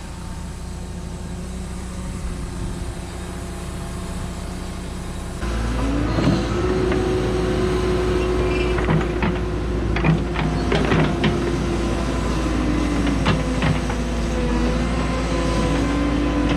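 Cat 314E excavator's diesel engine running steadily, then about five seconds in it rises in pitch and gets louder as it speeds up to working speed. It carries on working with a wavering whine and scattered knocks and clunks.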